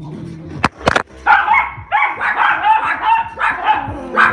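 An angry dog barking over and over, starting about a second in, just after two sharp knocks.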